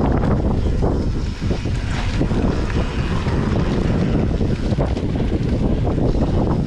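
Wind buffeting an action camera's microphone on a mountain bike going downhill, mixed with the rumble and clatter of the tyres and bike over a dirt trail.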